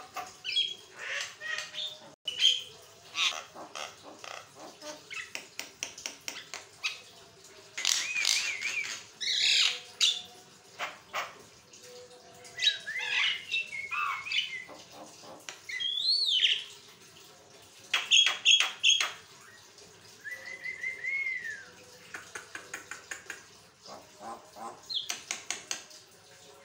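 Javan myna chattering without pause in a varied song of rapid clicks, harsh notes and short whistles, with an arched rising-and-falling whistle a little past the middle.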